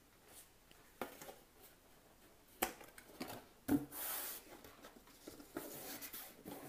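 Cardboard drilling template being handled and pressed onto a metal printer frame over bolt heads: a few sharp taps, about one, two and a half and three and a half seconds in, with soft rubbing and scraping of cardboard against the panel.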